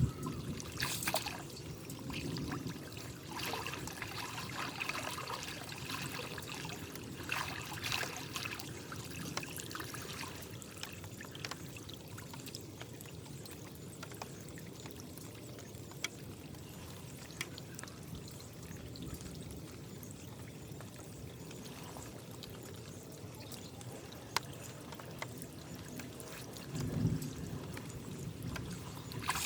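Water pouring and trickling steadily, with a few brief clicks and short louder swells.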